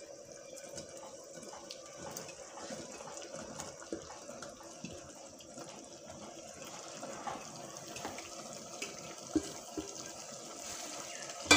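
Faint, steady, watery hiss of chana dal masala simmering in an open pressure cooker. A few soft knocks come as chopped ridge gourd is tipped in from a steel bowl, and there is a sharper clink near the end.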